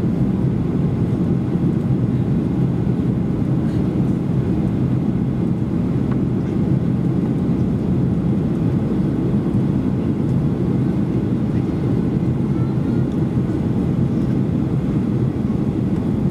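Steady cabin noise of a Boeing 737-800 in descent, heard from inside the passenger cabin: the even, low drone of its CFM56 jet engines and the airflow over the fuselage, with no change in pitch or level.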